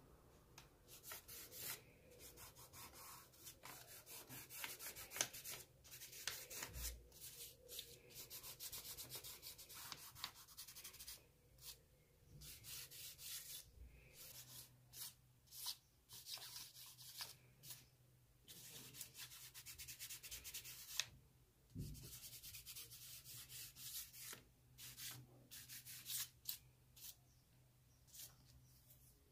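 Charcoal scraping and rubbing on sketchbook paper, faint, in bursts of quick strokes with short pauses between them.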